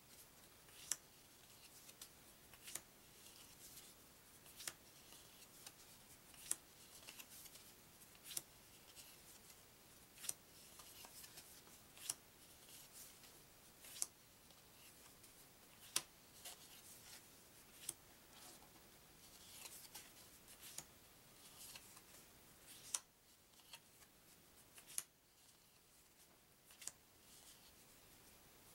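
Trivia cards being slid off the top of a stack one by one: a faint papery rub with a crisp flick about every two seconds.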